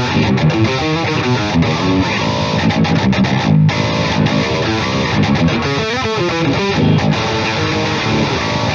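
Strandberg Boden 7 True Temperament seven-string electric guitar with Fishman Fluence pickups, playing a heavy, distorted metal riff of fast-changing notes. The riff breaks off briefly about three and a half seconds in.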